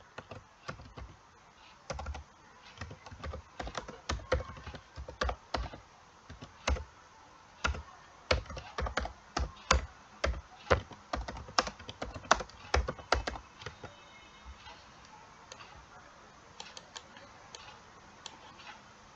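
Typing on a computer keyboard: a quick, uneven run of key clicks that thins out after about thirteen seconds, with a few lighter taps near the end.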